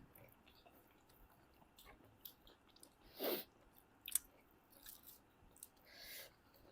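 Faint chewing and mouth clicks of people eating pork, with a louder short mouth sound about three seconds in.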